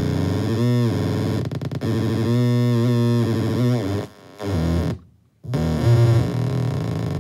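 PsCyBr DeKrYpTR circuit-bent noise box playing a loud, buzzy, distorted drone whose pitch bends and wobbles under a light-based expression pedal. About four seconds in, as a hand is waved over the box's light sensor, the sound drops out twice, then comes back louder.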